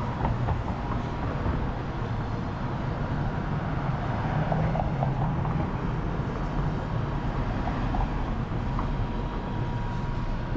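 Downtown street traffic: a steady low rumble of passing vehicles, with a car driving through the intersection near the end.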